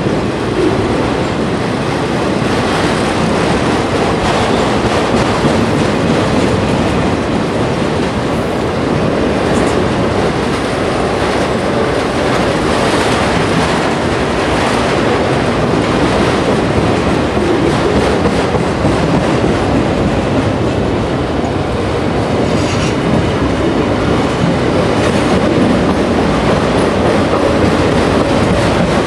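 Freight train of autorack cars rolling past: a steady noise of steel wheels running on the rails, with the rhythmic clatter of the car wheels going over the track.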